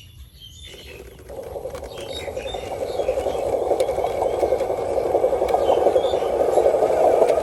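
A radio-controlled model truck's small motor and gears running with a rattling buzz, starting about a second in and growing steadily louder.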